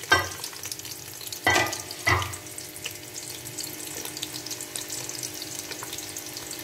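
Sliced onions frying in hot oil in a large aluminium pot, a steady sizzle and crackle of bubbling oil. Three short louder surges of sizzle come in the first two seconds.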